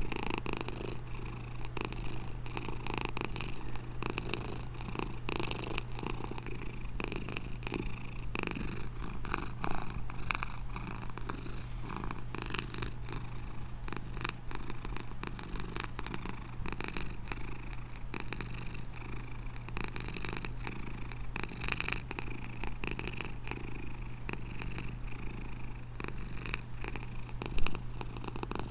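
Domestic cat purring steadily, close to the microphone, with one brief louder sound near the end.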